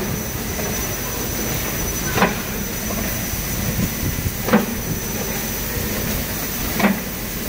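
DGM folder gluer running in production, a steady mechanical hum of belts and rollers with a thin high whine. A sharp knock repeats about every two and a quarter seconds, three times.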